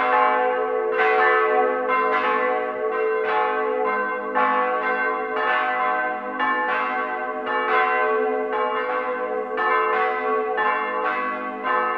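Church bells of Högsäter church swinging and ringing together: strikes about twice a second, each bell's tone ringing on and overlapping the next.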